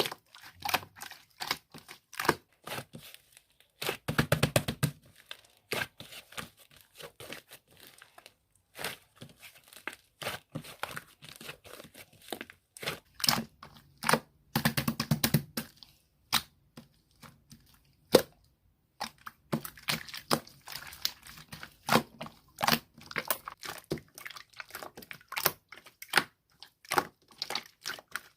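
A large batch of slime being pressed and squeezed, giving irregular crackling and popping clicks, with two denser runs of crackles about four and fifteen seconds in.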